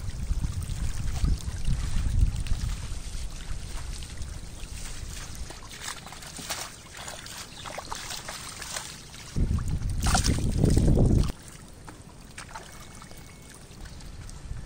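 Shallow muddy pond water splashing and sloshing, with scattered small splashes, as crowded catfish thrash and men wade and scoop them with hand nets. Wind rumbles on the microphone, loudest for about two seconds near the end before cutting off suddenly.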